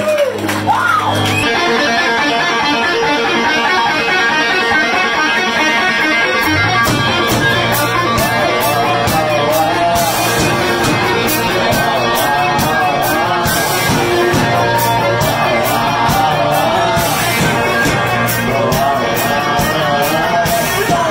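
Live blues-rock band playing an instrumental passage, led by an electric guitar with wavering, bent notes. A bass line comes in about six seconds in, and cymbals keep a steady beat.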